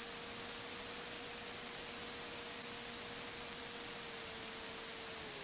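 Steady hiss of the aircraft's intercom audio feed, with a faint steady whine that drops a little in pitch near the end.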